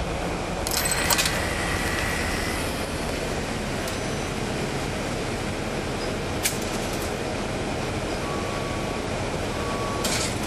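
Inside a NABI 40-SFW transit bus: its Cummins ISL9 diesel engine and cabin noise as a steady rumble. A few rattling clicks come about a second in, one sharp click at about six and a half seconds, and more clicks near the end.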